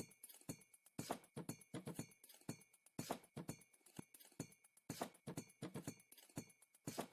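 A faint, uneven series of short, sharp clicks or taps, about three a second.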